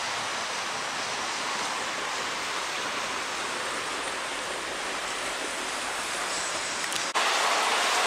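Steady hiss of city road traffic, with no distinct events; it jumps louder near the end.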